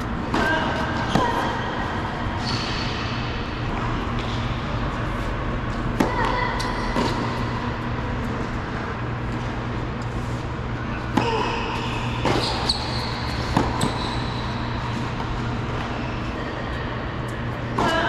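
Tennis play on an indoor hard court: a few sharp racket strikes on the ball, spaced irregularly, with short squeaks of tennis shoes sliding on the court, over a steady low hum.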